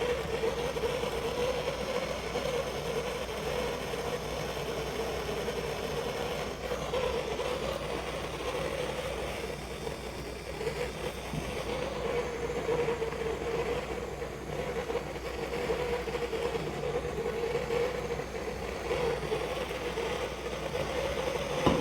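Plumber's gas blowtorch flame burning steadily, heating a copper pipe fitting for soldering.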